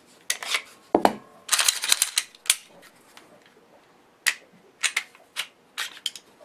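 Glock 19 pistol being field-stripped by hand: a run of sharp clicks and clacks as the magazine comes out and is set down and the slide is worked and pulled off the frame. The clicks bunch together about one and a half to two and a half seconds in, then come singly later.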